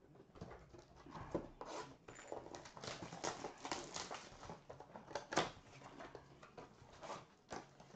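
Plastic wrapper of a 2020 Bowman baseball card pack crinkling as it is handled and opened by hand, with trading cards rustling, in a run of irregular crackles and a sharper one about five seconds in.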